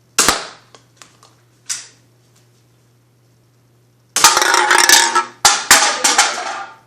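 Nerf blaster firing a foam dart with a sharp snap, followed by a few light clicks and a short hiss. About four seconds in comes a loud, rough clattering noise lasting a couple of seconds, with several sharp knocks in it.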